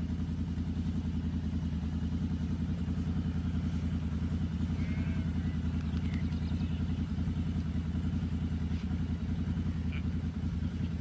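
Wind buffeting the microphone: a steady low rumble that flutters rapidly.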